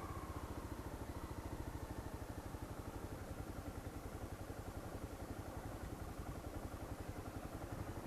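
Honda CB300 motorcycle's single-cylinder engine idling with a steady, even pulse.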